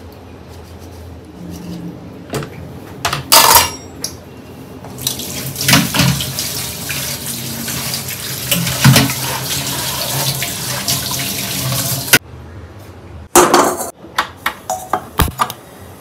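Kitchen tap running into a sink for about seven seconds, then shut off suddenly. Dishes and utensils clatter before it and in a few sharp knocks after it.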